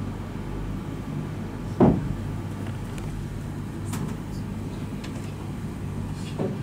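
Steady low hum of a hall with stage noises from performers moving about: one dull thump about two seconds in, then a few light knocks.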